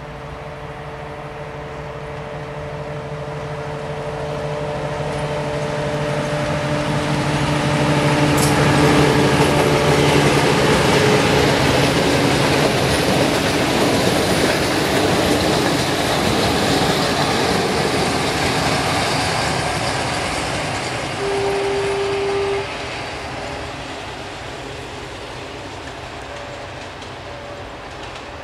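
A Romanian LDH diesel-hydraulic locomotive with double-deck coaches passing: the engine's steady drone grows as it approaches, then the wheel and coach noise rises to a loud rush and fades as the train moves away. A short single-tone horn blast sounds about two thirds of the way through.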